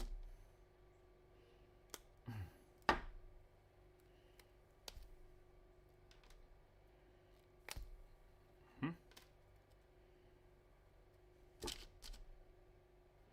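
Small plastic mouthpiece parts being handled and fitted together: scattered clicks and knocks, about ten in all, the loudest about three seconds in. Twice there is a brief sound that slides down in pitch, around two seconds in and again near nine seconds in.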